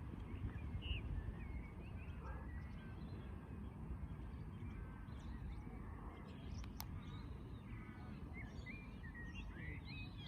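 Small birds chirping with scattered short calls that grow busier near the end, over a steady low rumble of outdoor background noise. One sharp click about two-thirds of the way through.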